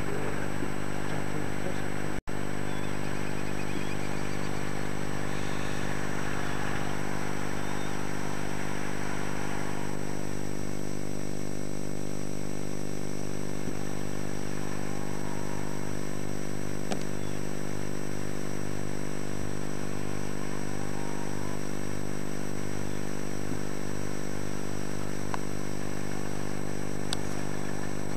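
Engine running with a steady, unchanging drone, briefly cut out about two seconds in.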